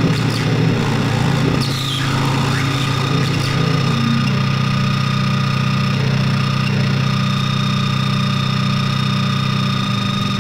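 Droning recording on a 7-inch flexi-disc: a steady low hum with steady high whistling tones above it. The low drone steps up in pitch about four seconds in.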